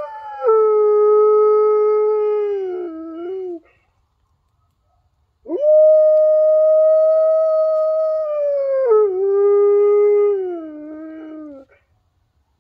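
A giant Alaskan Malamute howling: two long howls separated by a pause of about two seconds. Each howl holds one pitch, then steps down lower and slides down to its end.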